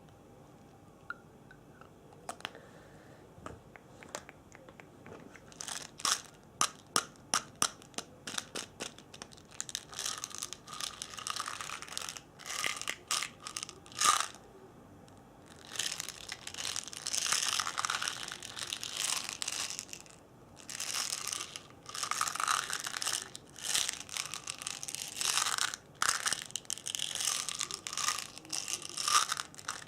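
Close-miked ASMR trigger sounds. A quick run of sharp clicks begins about six seconds in, about three a second, and turns into long stretches of crinkly, scratchy rustling from about sixteen seconds on.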